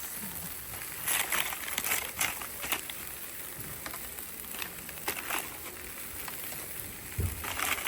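Charcoal barbecue crackling: irregular sharp pops and ticks over a steady hiss.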